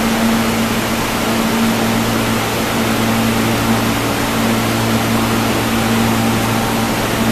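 R160 subway car standing at the platform with its onboard equipment running: a steady low hum over an even hiss, unchanging throughout.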